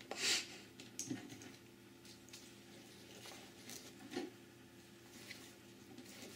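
Sensor cables and leads being handled and laid into a foam-lined carrying case: soft rustles and light clicks, with the loudest rustle just after the start. A faint steady hum runs underneath.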